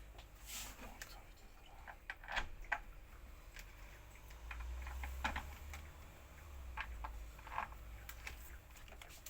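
Scattered light clicks and taps at an irregular pace, as of small parts and tools being handled, over a faint low hum.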